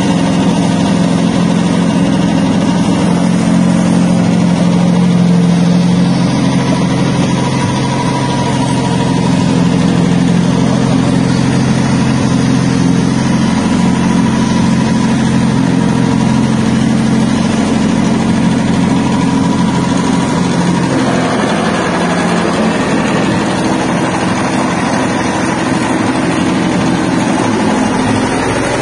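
Soybean cracking and dehulling machine running steadily while beans are fed through it. Its low hum thins out about twenty seconds in, leaving a rougher, more even mechanical noise.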